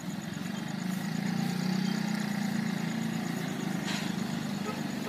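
Motorcycle engines running as motorbikes cross the tracks at a level crossing, a steady low hum that swells about a second in as one rides past close by.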